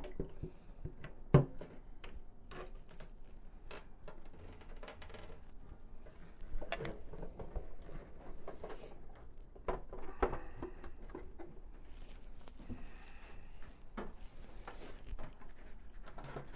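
Clicks, knocks and rustling as a motorcycle fuel tank and its surrounding plastic panels are lifted and swung round on the tank's pivot. One sharp knock about a second in, then scattered lighter clicks.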